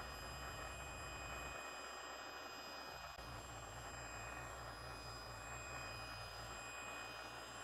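Table saw running, a steady hum with a thin high whine, as its blade is raised slowly up through a hardwood zero-clearance insert blank to cut the slot.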